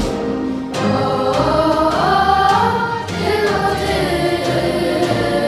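Girls' choir singing a Polish pop song, the massed voices rising and falling in a sung melody.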